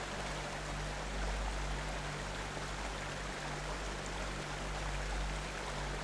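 Acushnet River water flowing: a steady rushing hiss with a low rumble underneath.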